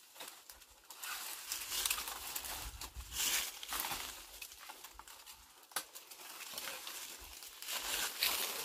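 Dry brush and leaf litter rustling and crackling in repeated short bursts as a dead wooden branch is dragged out of the undergrowth, with one sharp click a little before six seconds in.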